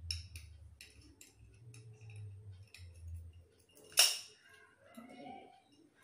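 Metal padlocks hanging from the earlobes clicking and clinking as they are handled, with one sharp, loud metallic click about four seconds in.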